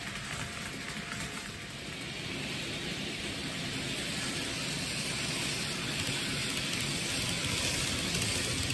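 N-gauge model train running along the layout's track: a steady rolling noise of small wheels on the rails, growing a little louder toward the end.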